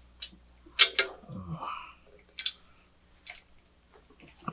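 Metal clicks and taps as a Tial external wastegate and its V-band clamp are handled against a stainless steel exhaust header: about half a dozen separate sharp clicks at uneven intervals.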